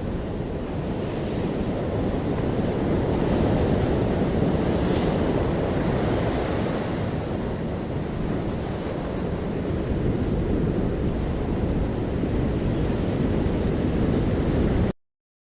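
Sea waves washing onto a beach, a steady surging wash with wind rumbling on the microphone; it cuts off suddenly near the end.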